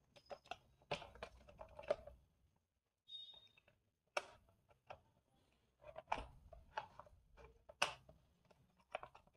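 Scattered small clicks and scrapes of a thin pointed tool prying a cover plate off the plastic underside of a toy jeep, with a few sharper snaps as the plate comes loose.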